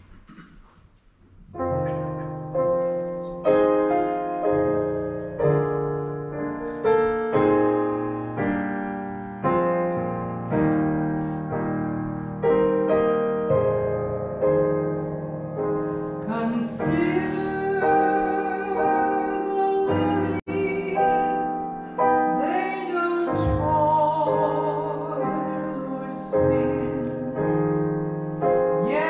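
A slow song with piano accompaniment: the piano starts about a second and a half in, and a singing voice with vibrato comes in about halfway through.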